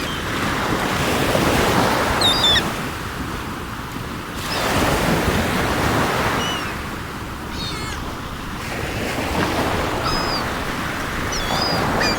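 Sea surf washing in, swelling and ebbing in about three slow waves, with seagulls giving short high calls over it several times.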